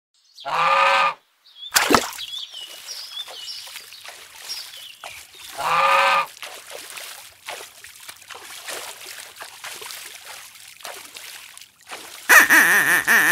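Duck quacking twice, as a sound effect, one short buzzy quack near the start and another about six seconds in. Between them are a sharp click, soft splashy water and chirping. A loud, dense, buzzy sound comes in near the end.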